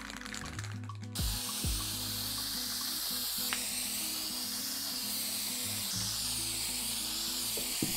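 Aerosol can of wood toner spraying in a steady hiss that starts about a second in and keeps going, over background music.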